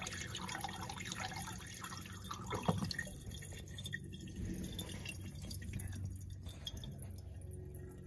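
Miniature toilet's flush water swirling down the bowl and draining away, fading to a quiet trickle with scattered drips as the bowl settles.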